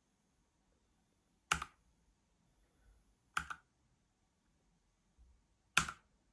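Three single key presses on a Redragon K565 mechanical keyboard with red switches, each a sharp clack, about two seconds apart.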